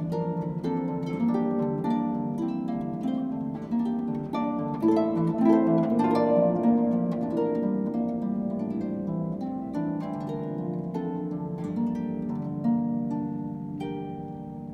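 Solo concert harp played with plucked notes and rolling chords, swelling loudest about five to seven seconds in and easing a little near the end.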